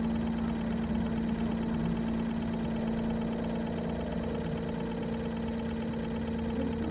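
Steady motor hum on a fishing boat: an even, unchanging drone with a clear pitched tone.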